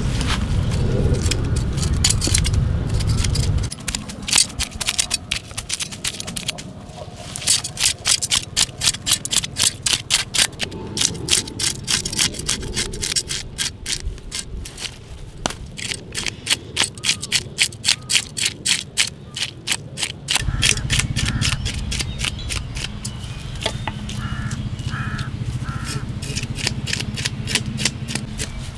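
Knife blade scraping scales off a whole fish on a wooden chopping board, in quick, evenly repeated strokes that start a few seconds in and stop about two-thirds of the way through.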